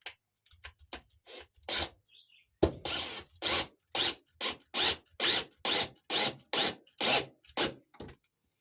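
Rhythmic back-and-forth rasping strokes of a hand tool on wood, a little over two a second, starting a few seconds in after some scattered light knocks.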